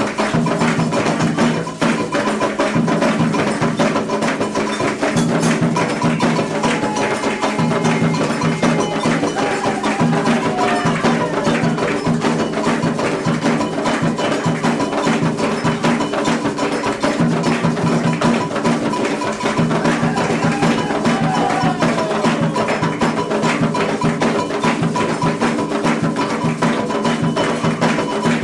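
Candomblé ritual music: atabaque hand drums and a struck bell keep a fast, steady rhythm, with voices singing over it.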